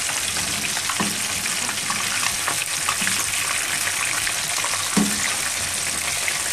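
Masala-coated fish pieces sizzling steadily in shallow oil in a frying pan on high heat, with a few light knocks as the pieces are turned with a slotted spatula, clearest about one second in and again near five seconds.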